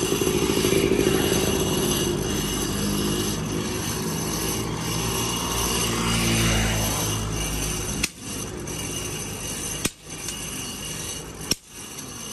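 A heavy road vehicle's engine passes with a steady low rumble that swells and fades over the first several seconds. Then a blacksmith's hand hammer strikes an iron blade on a small anvil three times, one blow about every second and a half to two seconds.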